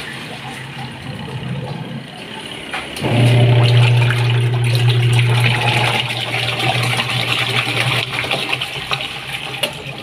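Sharp ES-W500 single-tub washing machine running its wash cycle with water in the tub: the motor hum drops, then comes back strongly about three seconds in and runs for about five seconds before easing off, with water swishing. The pulsator gearbox is turning slowly, a sign the drive is not getting enough speed through the belt.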